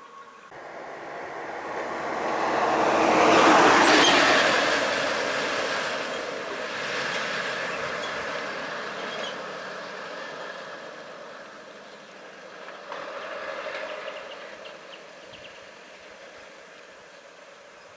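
Road vehicles passing close by: engine and tyre noise swells to a peak a few seconds in and slowly fades, with a second, smaller swell near the end.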